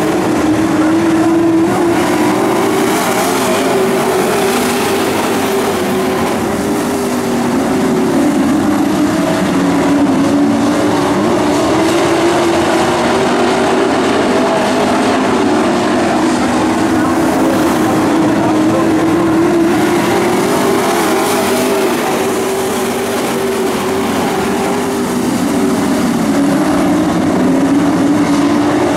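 A pack of dirt-track race trucks running laps together, their engines making a loud, continuous drone whose pitch rises and falls gently as they go around the oval.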